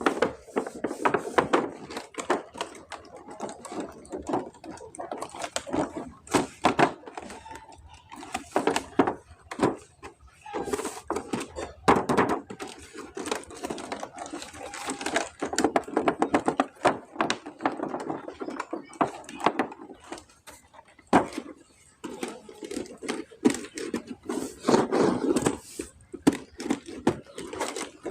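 Plastic toys and their packaging being handled: irregular clicks, taps and knocks with clattering stretches.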